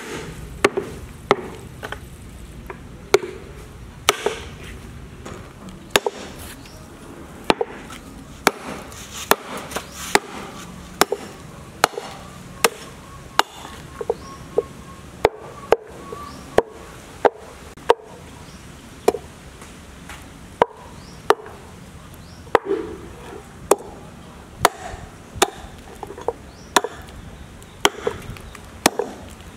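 Cleaver chopping raw meat on a round wooden chopping board: sharp chops at an uneven pace, about one or two a second.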